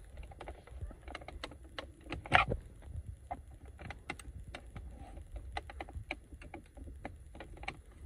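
Small irregular clicks and taps of a flathead screwdriver tip prying and scraping at hard plastic dashboard trim around the heater controls, with one louder click about two and a half seconds in.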